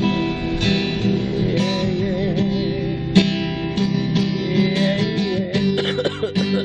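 Acoustic guitar strummed with a capo, with a voice singing along in places, and one sharper, louder strum about three seconds in.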